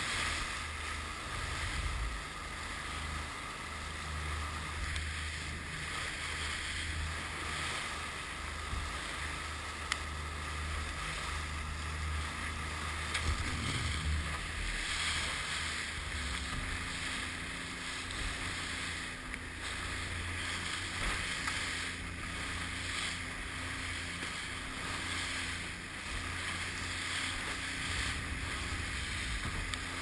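A 40 hp outboard motor driving a small aluminium boat through rough surf: a steady low engine drone under the hiss of spray and rushing water, with wind on the microphone. A higher steady engine tone comes in about halfway through.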